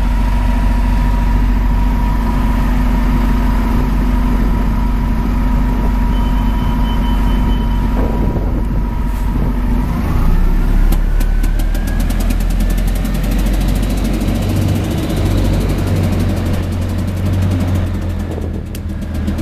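Transit bus's Detroit Diesel Series 50G engine running, idling steadily at first, then pulling away about ten seconds in with a rising whine. A fast, regular ticking runs through the second half.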